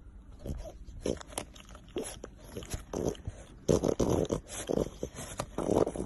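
French bulldog chewing dry kibble, a run of irregular crunches, loudest in the second half.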